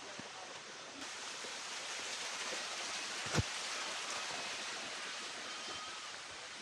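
Steady rush of running water from the small stream and waterfall, getting a little louder about a second in, with one sharp knock a little past the middle.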